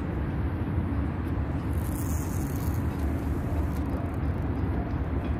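Steady low rumbling noise, with a brief high hiss about two seconds in.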